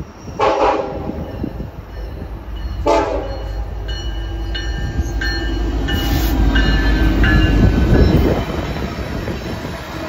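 Union Pacific SD70ACe diesel locomotive sounding its horn in two short blasts, the second about two and a half seconds after the first. The deep rumble of its diesel engine and wheels then builds as it passes close, loudest about eight seconds in, with a few short high-pitched tones over it.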